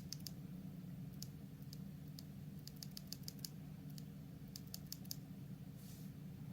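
Mechanical keyboard with factory-lubed Gateron Oil King linear switches, a polycarbonate plate and ABS keycaps being typed on: scattered single keystrokes and short quick runs of keys. A steady low hum lies under them.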